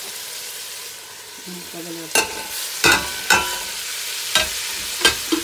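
Mutton pieces frying in hot oil in a stainless steel pot with a steady sizzle, stirred with a wooden spatula. In the second half about six sharp clacks of utensils knocking against the pot as powdered spices go in.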